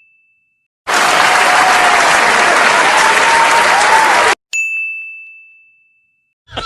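A bell-like ding fading away, then about three and a half seconds of crowd applause and cheering that starts and cuts off abruptly. Another identical ding follows and rings out, fading slowly.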